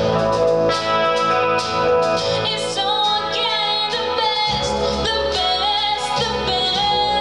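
Live rock band playing: a woman singing over electric guitar and drums.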